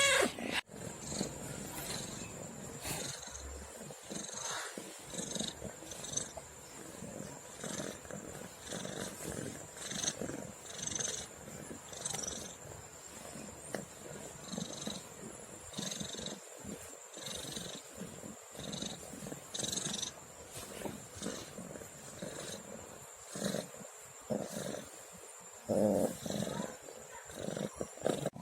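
Domestic cat purring close up, the low purr swelling and fading about once a second with each breath.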